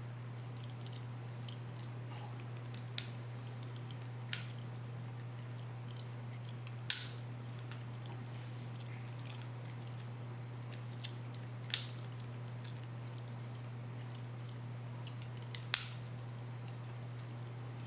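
A handful of small, sharp metallic clicks, spaced a few seconds apart, from a lock pick and tension wrench working the pins of a Master Lock 570 padlock during single-pin picking. A steady low hum runs underneath.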